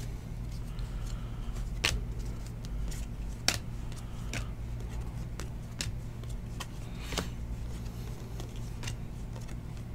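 Trading cards being slid and flipped through the hands, with scattered light clicks as card edges flick against each other, over a steady low hum.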